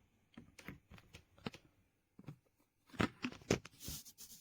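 Handling noises: irregular clicks and knocks, busier about three seconds in, with a short rustle near the end.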